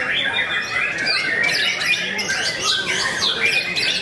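Caged white-rumped shamas singing at once: a dense, unbroken tangle of rapid whistled phrases and quick rising and falling notes from several birds.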